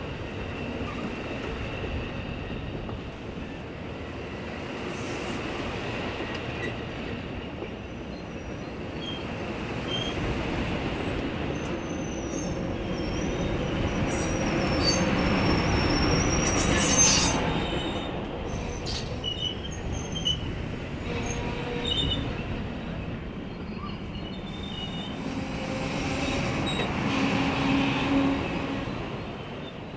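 Amtrak Superliner passenger cars rolling past, wheels rumbling on the rail with intermittent high-pitched wheel squeals and a few sharp clanks, as the Southwest Chief slows for its station stop. The sound swells about halfway through and again near the end.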